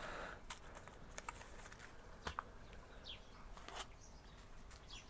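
Faint bird calls outdoors: a few short falling chirps, with several light clicks and taps in between.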